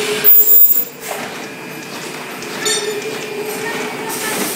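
SYS-CL620 clear-book sealing and welding machine running with a steady mechanical hum. There is a loud short burst within the first second and a metallic clink a little past halfway.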